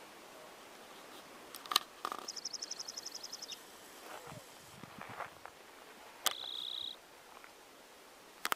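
A small animal's high-pitched trill of about a dozen quick notes, and a few seconds later a short, lower buzzing trill, over faint outdoor background. Three sharp clicks are also heard, the loudest about two seconds in.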